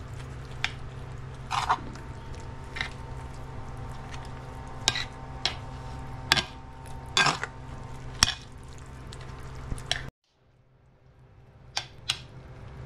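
Metal spoon stirring and mashing chickpeas and soaked bread in a ceramic plate: soft squishing with scattered clinks and scrapes of the spoon against the plate, over a steady low hum. The sound drops out for about a second around ten seconds in, then fades back.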